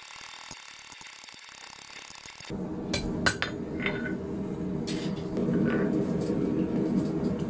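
Blacksmith's hammer striking a hot 10 mm round steel bar on the anvil face, about a dozen light, irregular blows, a few ringing briefly. This sits over a steady hiss that gives way, about two and a half seconds in, to a louder steady low rumble.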